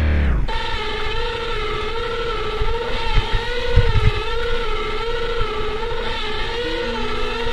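A music track cuts off with a falling pitch glide in the first half second. Then a mountain bike coasts down a rocky dirt track: a steady buzzing whine that wavers up and down in pitch, with low thumps over bumps about three to four seconds in.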